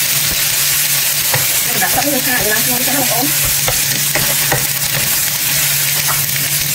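Sliced mushrooms sizzling in hot oil in a nonstick frying pan, stirred and tossed with a spatula that scrapes and taps against the pan several times.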